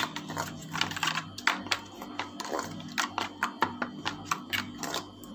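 Metal spoon stirring a thick spice paste in a stainless steel bowl, clicking and scraping against the metal about three times a second.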